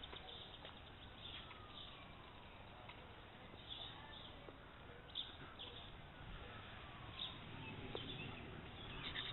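Birds chirping faintly and intermittently, short high calls scattered over a quiet outdoor background.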